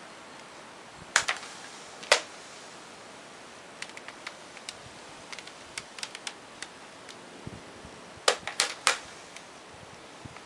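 A cat's paw punches knocking against a vacuum cleaner's plastic body: a sharp double knock about a second in, another knock near two seconds, scattered light ticks in the middle, and three loud knocks in quick succession near the end.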